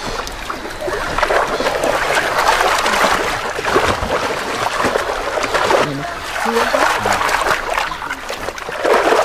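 A crowd of pelicans splashing in shallow water as they scramble for thrown fish scraps: dense, continuous splashing with a short lull about six seconds in.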